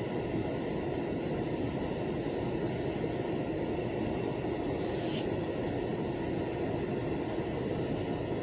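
Freight train hopper cars rolling past: a steady rumble of steel wheels on rail, with one brief sharp squeak or clank about five seconds in.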